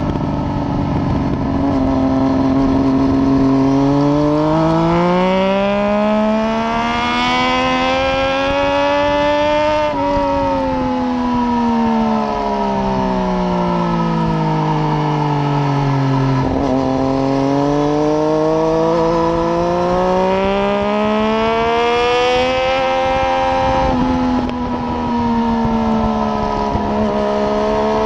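Triumph Daytona 675's three-cylinder engine through a de-catted header and unbaffled Arrow exhaust at track speed: the revs climb for about seven seconds, fall away for about six, climb again, then ease off over the last few seconds, with a steady rush of wind noise underneath.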